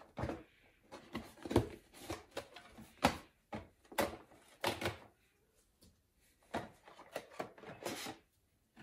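Advent calendar window being opened and a small tasting bottle taken out: a run of knocks, clicks and rustles from cardboard and glass being handled, with a short pause just past the middle.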